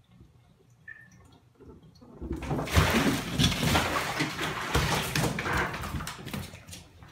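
A cat falls into a filled bathtub and thrashes in the water, loud splashing that starts about two seconds in and lasts some four seconds as it scrambles out over the rim.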